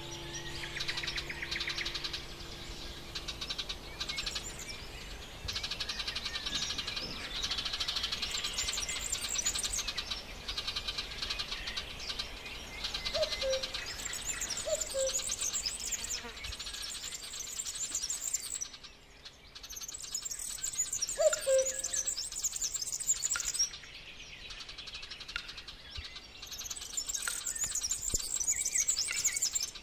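Songbirds singing together in a dense chorus of fast, high chirps and trills, with a few short, lower calls near the middle. A held musical chord fades out over the first few seconds.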